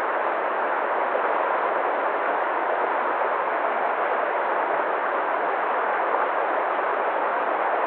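Waterfall: falling water making a steady, even rushing noise.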